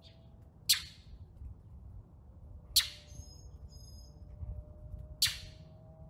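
Small songbird mobbing a cat: three sharp, harsh, down-slurred calls about two seconds apart, with short high chirps between them.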